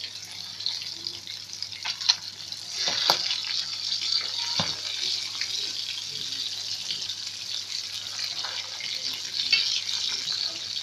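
Pieces of rohu fish frying in hot oil in a wok: a steady sizzle that grows louder about three seconds in. A few sharp clicks sound in the first five seconds.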